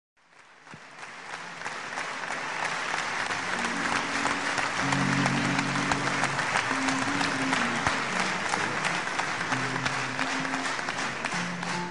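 Concert audience applauding, the clapping swelling up over the first two seconds, with the band starting to play low melodic notes beneath it from about three seconds in.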